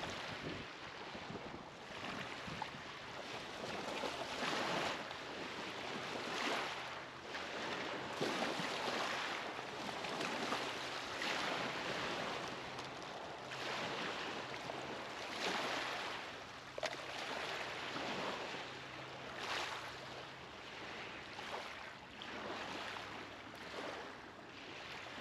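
River waves washing against the bank in swells every two seconds or so, with a faint low steady hum underneath.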